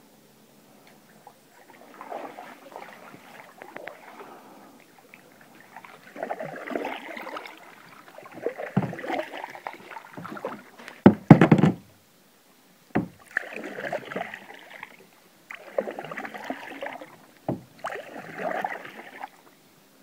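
Canoe paddle strokes, a series of water swishes a second or two long with short pauses between. About halfway through come a few sharp, loud knocks, the loudest sound here.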